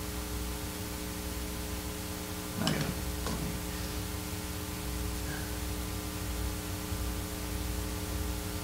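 Steady electrical mains hum with a hiss of background noise, with two short breathy sounds from the man about three seconds in.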